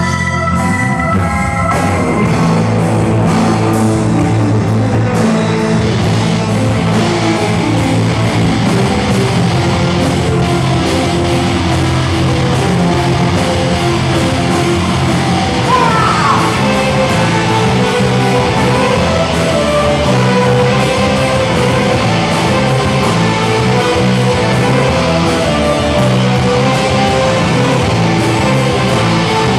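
Rock band playing live: electric guitars and drums play steadily and loudly, with a short rising glide about halfway through.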